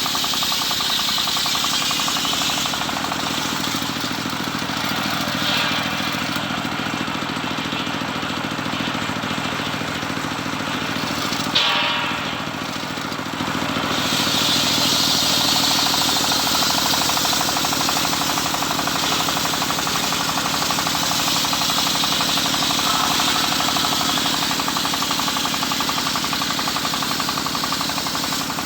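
Home-built table circular saw ripping teak, its motor and blade running with a steady rattling hum. There is a short sharp crack about twelve seconds in and a brief lull, then the cut carries on with a louder hiss.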